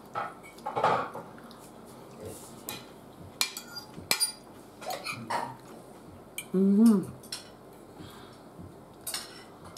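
Cutlery clinking and scraping against plates while eating, a scatter of sharp separate clicks. A short voiced sound, the loudest thing here, comes about seven seconds in.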